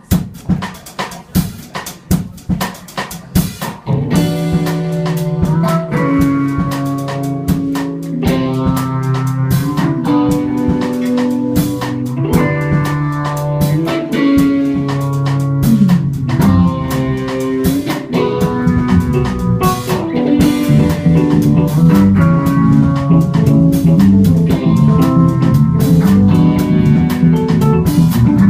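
Live rock band: a drum kit plays alone for about four seconds, then electric bass and guitar come in over the drums for an instrumental passage without singing.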